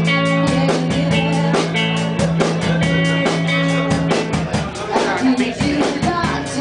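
Live band playing a song, with a steady quick drum beat over a held bass note and guitar.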